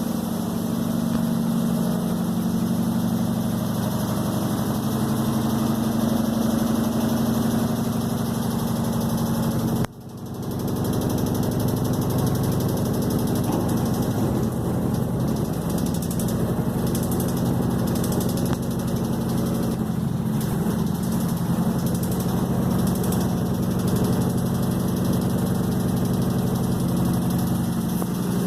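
Electrolux washing machine running with a loud, steady motor hum. About ten seconds in it cuts out briefly, then resumes rougher and less even.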